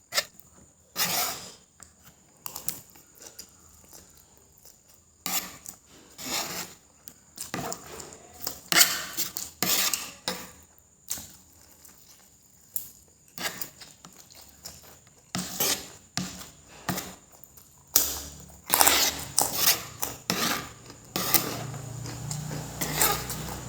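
Cutlery clinking and scraping against a plate in short, irregular strokes while a plate of fried noodles is eaten.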